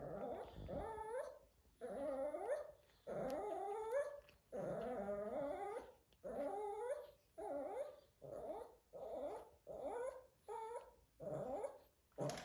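Adult Shih Tzu whining in a run of about a dozen wavering, drawn-out cries, each shorter than the one before as the run goes on.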